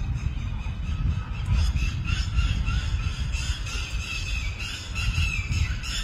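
A flock of Alexandrine parakeets calling with many rapid, harsh screeches that grow busier about two seconds in, over a steady low rumble.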